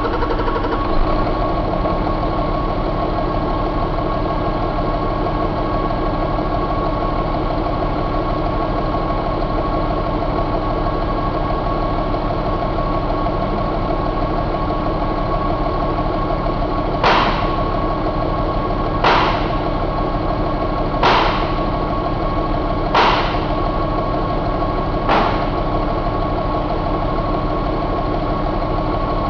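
2006 Hino J08E inline-six diesel engine idling steadily, with a steady high whine running through it. Past the halfway mark come five sharp sounds about two seconds apart.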